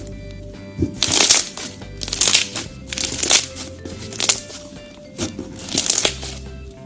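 Crunchy slime being pressed, crackling in loud bursts about once a second, over background music.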